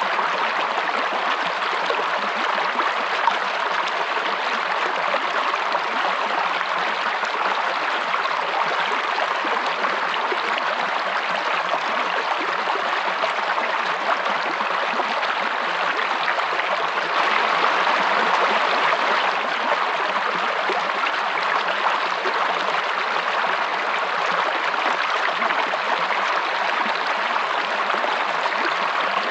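Fast-flowing forest stream or small waterfall splashing and gurgling steadily, a little louder for a couple of seconds past the middle.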